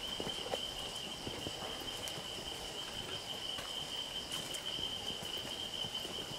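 Insects trilling in one steady, high, unbroken tone, with the soft footsteps of several hikers on a dirt forest trail underneath.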